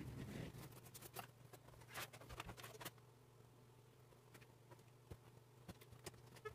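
Faint scattered clicks and rustles of hands handling speaker wire and a stereo receiver's casing while wiring it up, most of them in the first three seconds, over a steady low hum.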